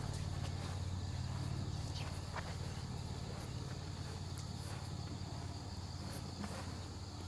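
Crickets chirring steadily over a low, steady hum, with a few faint clicks scattered through.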